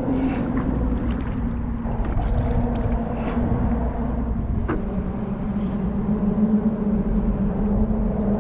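Motorboat engine running steadily, a low hum whose pitch drops slightly about halfway through, over a low rumble.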